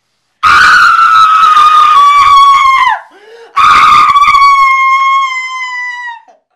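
A young man screaming, very loud and high-pitched: two long screams, each held on nearly one pitch and dropping away at the end, with a short break between them.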